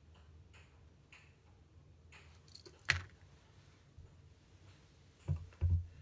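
Soft clicks from handling a pocket lighter and a dubbing needle, with one sharp click about halfway through and two low thumps near the end.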